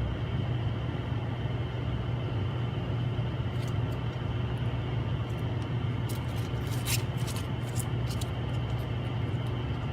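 Steady low electric machine hum from the repair bench. Over it, from about three and a half seconds in, small clicks and taps come as the replacement glass is handled, the loudest near seven seconds.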